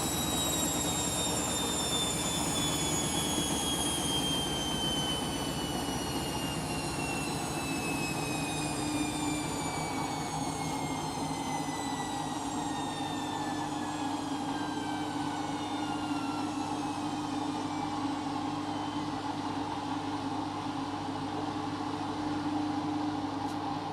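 Candy washing machine drum coasting down at the end of the final spin, the motor whine falling slowly and steadily in pitch over a steady mechanical hum.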